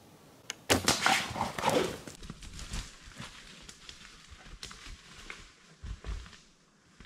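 A recurve bow is shot at a black bear a few yards below: a sharp string snap about half a second in. At once comes a loud burst of thrashing and animal noise for about a second and a half as the hit bear bolts, then scattered lighter crashing in the brush.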